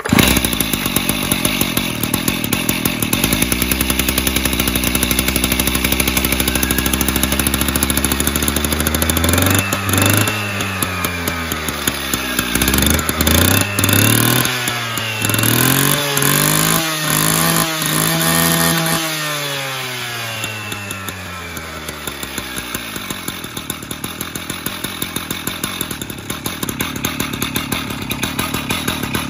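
Stihl TS410 cut-off saw's single-cylinder two-stroke engine, just cold-started, runs at a steady fast idle with the throttle held part-open. About ten seconds in it is revved up and down several times, then drops back and settles to a lower, even idle.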